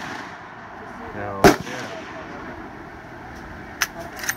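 A single loud rifle shot about a second and a half in. Near the end come a few light metallic clicks from the lever action of a Marlin 1895 rifle being worked.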